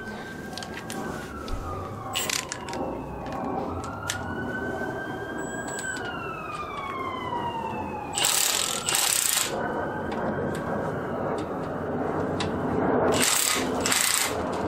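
A Milwaukee cordless impact wrench hammers in short bursts on the brake caliper bracket bolts, twice about eight seconds in and twice more near the end. Before that, an emergency-vehicle siren wails slowly up and down.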